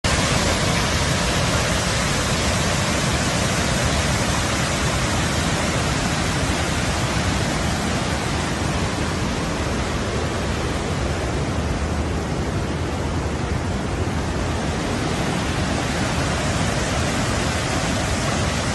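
Fast-flowing muddy floodwater rushing: a steady, unbroken rushing noise.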